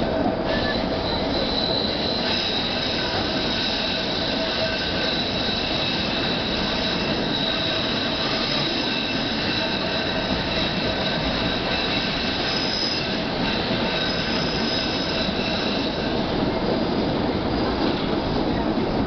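Passenger train rolling along the track with a continuous rumble and a high, steady squeal of steel wheels on the rails that fades out near the end.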